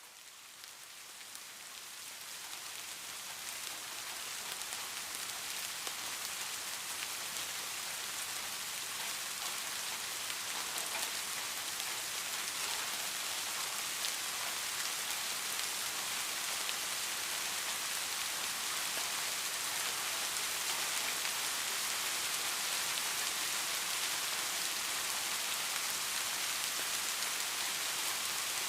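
Steady rain falling and pattering on a surface, a dense hiss of drops with fine scattered ticks. It fades in over the first few seconds, then holds steady.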